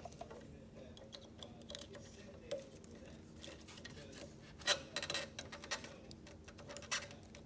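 Small plastic clicks and taps from wiring harness connectors being handled and fitted together, a scattered run of ticks with the loudest cluster a little past halfway.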